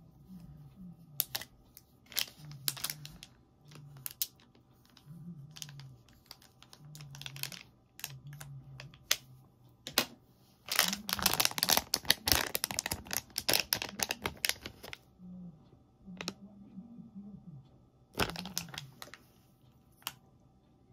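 A plastic foil blind bag crinkling as it is handled, with scattered sharp clicks and taps. The crinkling is densest for about four seconds in the middle, with another short burst a few seconds before the end.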